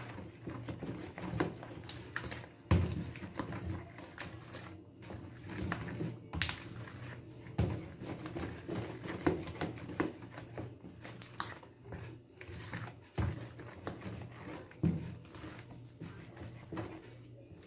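Cake batter being beaten by hand with a spoon in a plastic bowl: irregular knocks and scrapes of the spoon against the bowl and wet slaps of the batter, over a steady low hum.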